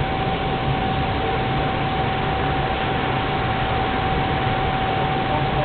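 Propane burner of a turkey fryer running at full flame under the oil pot: a steady rushing hiss, with a constant thin tone through it, while the oil heats.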